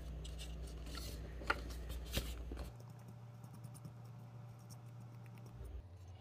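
Faint handling sounds of craft work on a cutting mat: a few light taps in the first couple of seconds, then only soft brushing-level noise over a steady low hum.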